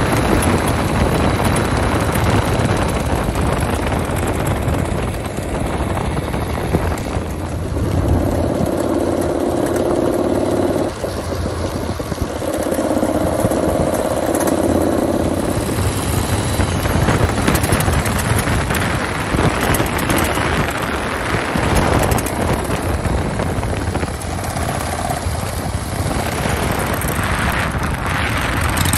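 Harley-Davidson Shovelhead V-twin engine of a custom chopper running, loud and steady, with a few held tones in the middle.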